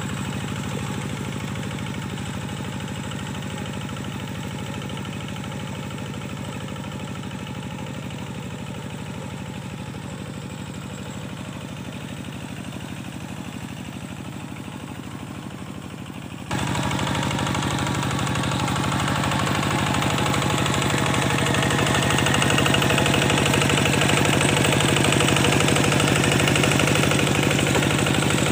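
Kubota diesel engine of a tractor working a flooded paddy field, running steadily. About sixteen seconds in it suddenly becomes louder and brighter.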